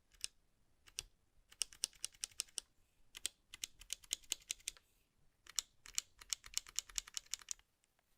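Typing on a HyperX Alloy Origins Core TKL mechanical keyboard with HyperX Aqua tactile switches: sharp key clicks in three quick runs of several keystrokes each, with a couple of single presses at the start.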